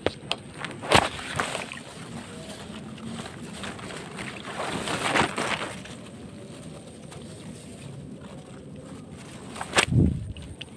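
Shallow rice-paddy water sloshing and grass rustling as hands work close to the water, with sharp knocks near the start and a heavier thump near the end.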